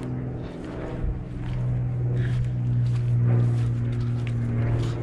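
Steady low drone of a running engine.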